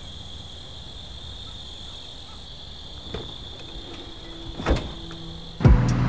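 Crickets trilling in one steady high note, with a couple of clicks and a car-door knock about four and a half seconds in. Near the end a much louder sound cuts in suddenly, most likely music.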